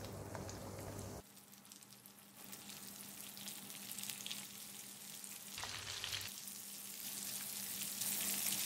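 Breadcrumb-coated prawns sizzling as they fry in hot oil in a pan, with a metal spoon stirring and turning them. The sizzle gets louder near the end.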